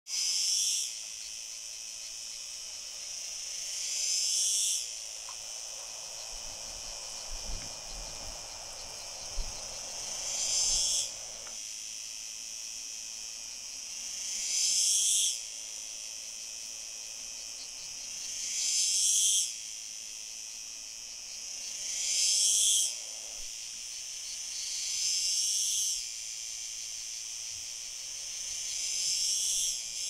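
Male cicada singing: a continuous high, dry buzz that swells into a louder, rising phrase every few seconds, which the recordist suspects is courtship song to a female beside him.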